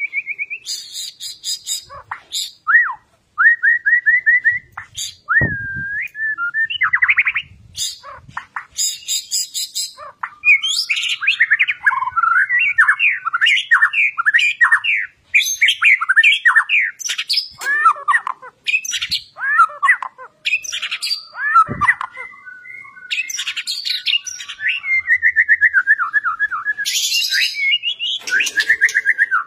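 White-rumped shama (murai batu) singing a long, varied fighting-style song: fast repeated trills, chattering runs of sweeping notes and high buzzy phrases in quick succession, broken by a few short pauses. Two brief knocks are heard, about five seconds in and again about 22 seconds in.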